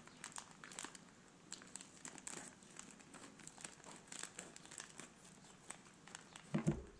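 Plastic snack pouch being handled, crinkling in irregular crackles, with a brief louder low sound a little before the end.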